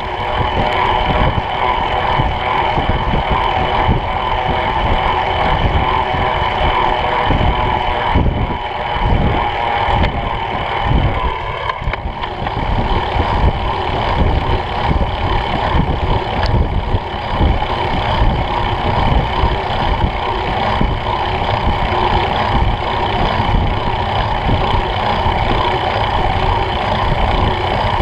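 Wind buffeting the microphone of a bike-mounted camera while riding at speed, with a steady rolling hiss and hum of bicycle tyres on wet asphalt.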